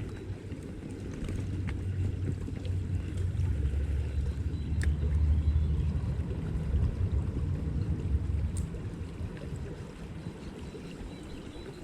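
Low, gusting rumble of wind buffeting the microphone beside a flowing stream, growing stronger in the middle and easing off near the end. A few faint ticks are heard.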